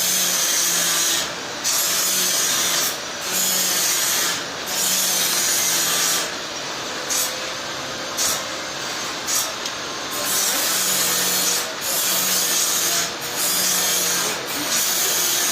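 A power tool working wood with a loud, steady hiss that drops off briefly every second or so, as in repeated passes over the timber.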